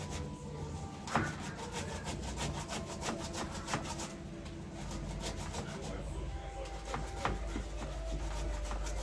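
A flat metal hand grater scraped over and over in quick, even strokes as food is grated on it, with a short lull about four seconds in.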